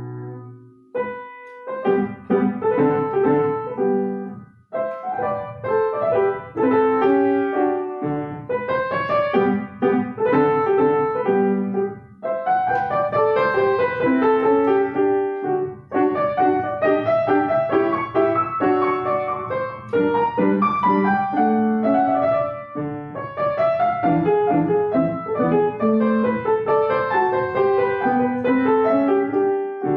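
Solo piano playing a classical piece. A held chord dies away just after the start, and after a pause of about a second quick running passages begin, continuing with short breaks between phrases.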